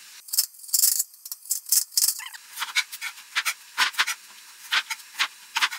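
Knife cutting a tomato on a cutting board: a quick, irregular run of short knocks, with crisp slicing sounds in the first two seconds.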